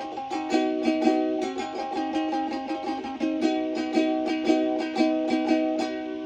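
Ukulele music: a steady run of picked notes, several a second. The playing stops near the end and the last notes are left to ring and fade.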